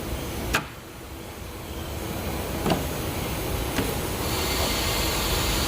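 Snap-on tool cart's slide top being opened: a sharp click about half a second in, then a steady sliding, rolling noise with a few faint ticks that grows slowly louder.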